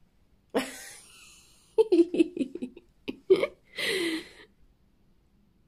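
A woman's wordless excited reaction: a sharp gasp about half a second in, then short bursts of giggling and a falling "ooh" near the end.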